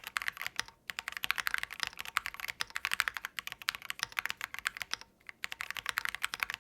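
Fast, continuous typing on a stock Keychron Q10 Pro Alice-layout mechanical keyboard: pre-lubed Keychron Red linear switches under double-shot PBT keycaps in a double-gasket mount, not yet tape-modded. Rapid key clacks, with two short pauses, about a second in and about five seconds in.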